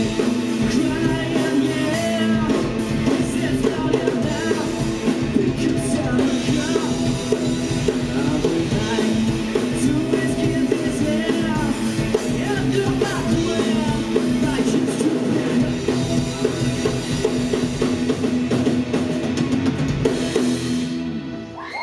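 Live rock band playing: drum kit, electric guitar, bass and keyboard, over a long held low note. The song ends abruptly near the end.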